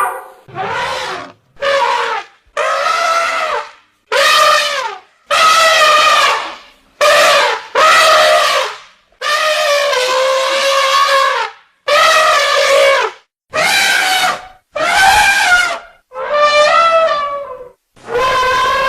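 Elephant trumpeting: a run of about a dozen separate loud calls, each lasting around a second, with short silent gaps between them and a pitch that bends up and down within each call.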